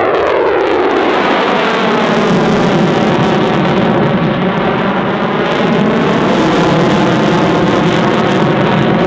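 F-16C Fighting Falcon's single jet engine (Pratt & Whitney F100) flying past, loud and continuous. Its pitch falls at the start as the jet passes, then the engine noise holds steady.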